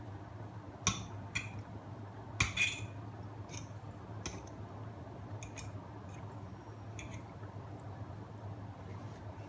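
Eating from a plate: short clicks and clinks of a utensil against the dish, the loudest about a second in and a cluster around two and a half seconds in, with fainter ones after. A steady low hum runs underneath.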